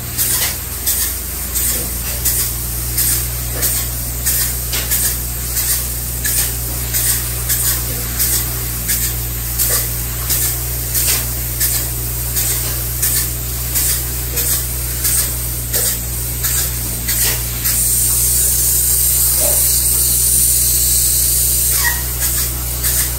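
Closed-cell spray foam gun hissing in short regular bursts, about one and a half a second, then one continuous spray of about four seconds near the end. A steady low hum runs underneath.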